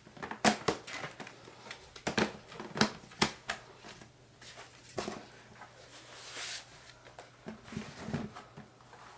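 Handling noises from a laptop and its battery: a series of sharp plastic clicks and knocks, with a stretch of soft rustling in the middle.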